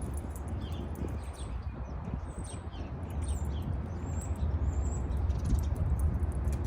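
Small birds chirping in short, high calls and brief whistles, scattered throughout, over a steady low rumble.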